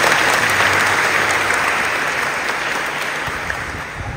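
An audience clapping together, the applause slowly fading away.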